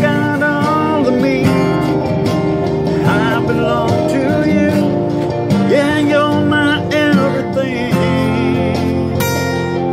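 A man singing while strumming chords on a steel-string acoustic guitar.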